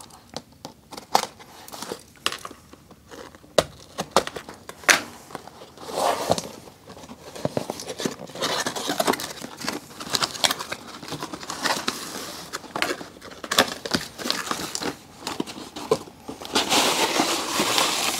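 A cardboard toy box being opened by hand: flaps and inserts pulled apart, with crinkling and rustling packaging and scattered clicks and taps. The rustling grows denser from about six seconds in and is loudest near the end.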